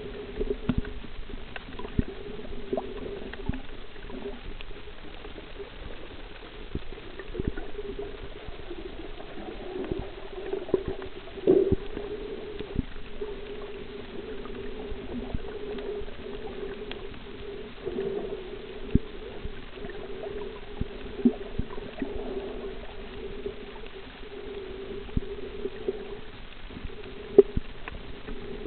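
Underwater sound: a steady low hum in two tones, with sharp clicks scattered throughout and a few louder knocks, the loudest near the end.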